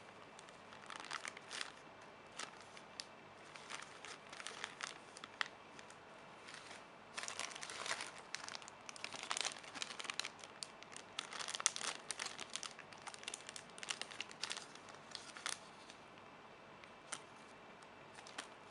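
Thin plastic packaging crinkling as it is handled, in irregular crackly bursts that come thickest in the middle.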